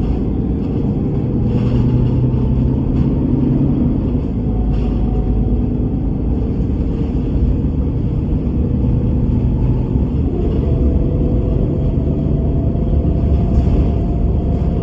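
Bus engine and drivetrain running as the bus drives: a steady low drone with a whine that shifts in pitch, rising about ten seconds in, and a few brief rattles.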